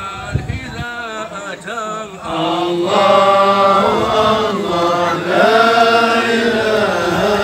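Men chanting Sufi dhikr at a hadra, unaccompanied. One voice carries the line at first, then about two seconds in the whole group comes in louder with long held notes.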